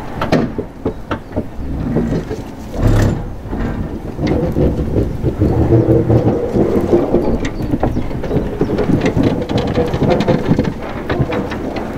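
Ex-London Underground 1959 Tube stock carriages rolling slowly along the rails: wheels clicking and clanking over the track with a low rumble, a heavy thump about three seconds in, and a steady hum joining about four seconds in. Wind buffets the microphone.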